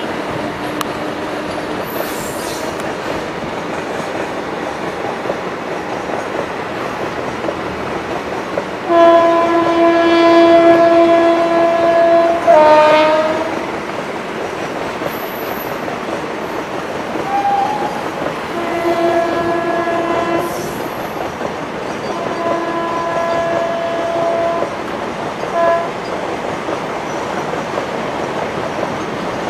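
Two trains passing on adjacent tracks, with steady rumbling and clatter of wheels over the rails. About nine seconds in, an electric locomotive's horn sounds one long blast that falls in pitch as it ends. Three shorter horn blasts follow later on.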